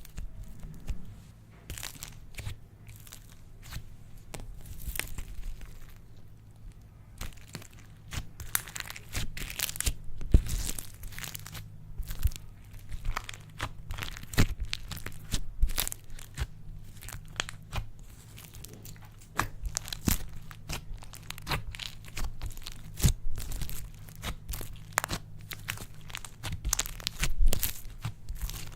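Slime being squished, stretched and pressed by hand, giving dense, irregular crackling pops and crinkly tearing sounds.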